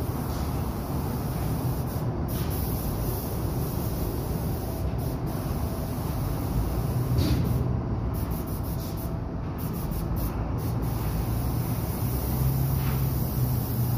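Paint spray booth ventilation fans running: a steady rush of air with a low hum.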